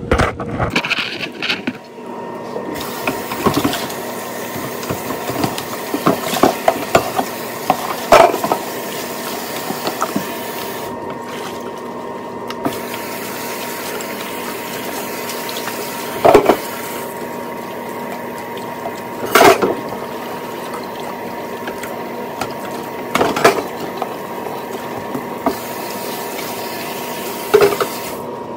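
Tap water running into a kitchen sink while dishes are washed by hand, with dishes clinking and knocking against each other or the sink now and then, a handful of the knocks louder than the rest.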